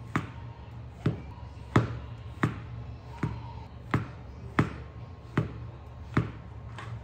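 Chef's knife slicing through mushrooms and knocking down onto a marble cutting board: nine sharp, evenly paced knocks, about three every two seconds.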